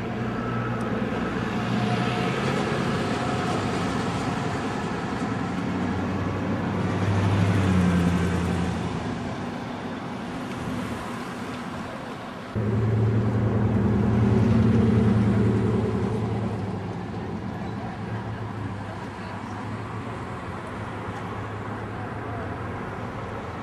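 Motor vehicle engines running with road noise, swelling louder twice as vehicles go by, with a sudden step up in level about halfway through.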